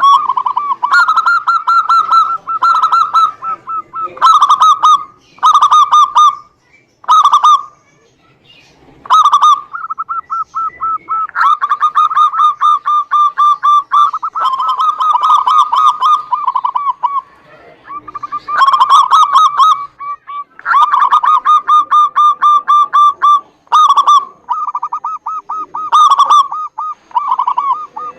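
Zebra doves (perkutut) cooing in long phrases of rapid, staccato repeated notes, one phrase after another with short breaks, the longest about eight seconds in.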